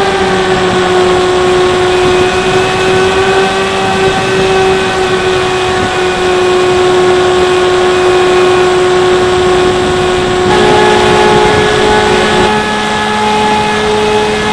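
Bixler 3 RC plane's electric motor and pusher propeller running in flight at a steady whining pitch, heard from a camera mounted on the plane with wind rushing past. About ten seconds in the pitch steps up.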